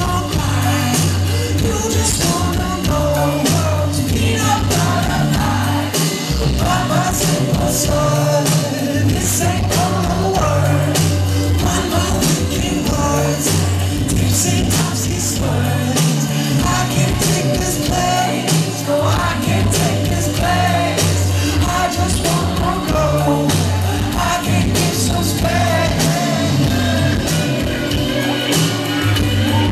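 Live band playing a song with singing: electric guitar, keyboards and drums over a steady, repeating bass line, heard from among the audience in a club hall.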